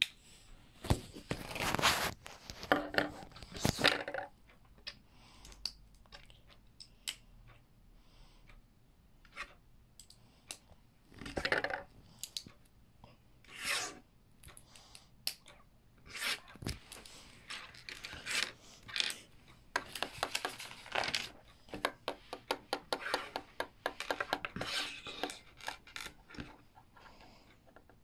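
Plastic LEGO pieces being handled: bursts of rubbing and rustling with clusters of sharp clicks as bricks are sorted and snapped together.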